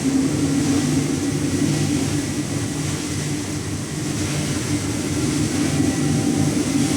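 Steady drone of biomass pellet plant machinery running: a low hum with a higher hum above it, over a constant hiss.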